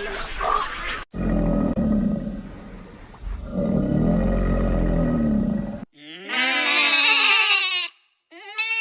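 Animal calls strung one after another: a large animal's deep, low roaring calls for about five seconds, then after a brief break a wavering, high-pitched bleat, and a shorter bleat near the end.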